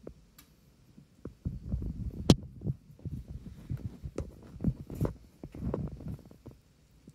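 Kittens tussling in play: a quick, irregular run of soft thumps and knocks as bodies and paws hit the floor and nearby objects. It starts about a second and a half in, with one sharp, louder knock shortly after.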